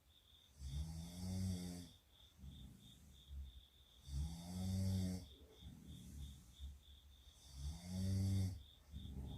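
A sleeping person snoring: three snores about three and a half seconds apart, each a rough, buzzing intake that rises slightly in pitch at its start, with quieter breathing between them.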